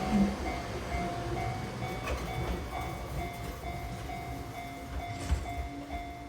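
Japanese railway level-crossing warning bell dinging in a steady rhythm of about two dings a second, over the low rumble of an Enoden train, the whole slowly fading.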